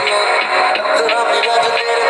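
Music: a song with a sung voice over instrumental backing.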